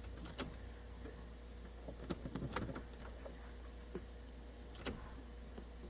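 Ignition key of a 1997 GM truck being cycled on and off to build fuel pressure: a handful of faint clicks and keyring jingles, a cluster of them about two and a half seconds in, over a steady low hum.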